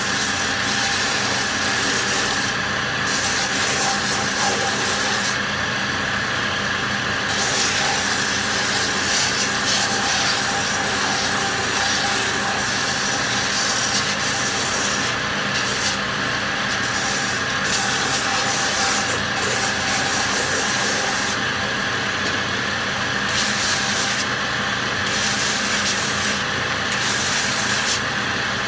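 A shoe repair finishing machine runs steadily with a constant whine while a piece of leather is held against its spinning sanding wheel. The rasp of the sanding breaks off briefly several times as the leather is lifted away from the wheel.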